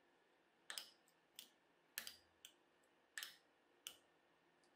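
Faint, sharp clicks as a hobby knife blade prises single staples off a glued strip of copper-coloured staples, seven snaps spaced about half a second to a second apart.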